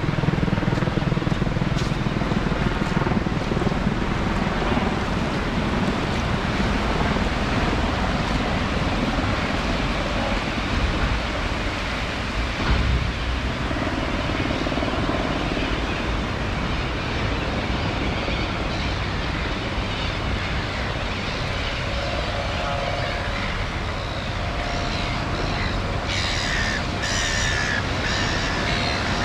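Steady rushing wash of ocean surf breaking on the beach. A few short, high-pitched calls come through near the end.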